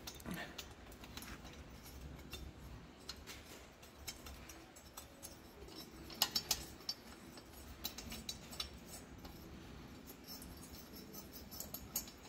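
Faint, scattered metallic clicks and clinks of steel head bolts being handled and threaded by hand into the cylinder head of a Kohler KT-17 twin engine, with a few sharper clinks about six seconds in.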